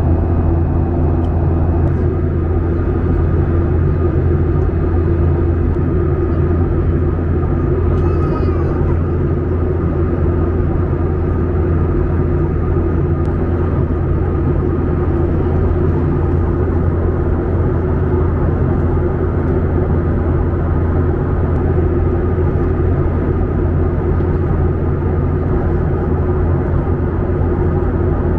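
Steady cabin drone of a jet airliner in flight: engines and rushing air make an even low hum with a couple of steady tones above it, unchanging in level.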